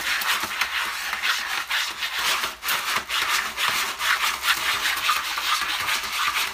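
A cat scratching and digging in granular cat litter: repeated raspy scraping strokes as its paws rake through the grains and against the plastic tray.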